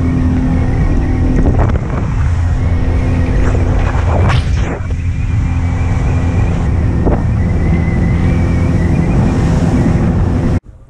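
Boat motor running at speed under way, a steady engine drone under heavy wind buffeting on the microphone, with a few sharp thumps about one and a half, four and seven seconds in.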